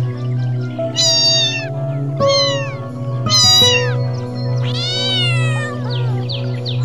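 A cat meowing four times, the last meow the longest, rising then falling in pitch, over steady background music.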